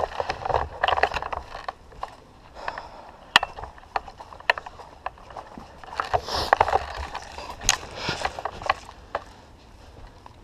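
Close-up handling noise: irregular clicks, rustles and scrapes, bunched at the start and again past the middle, with quieter stretches between.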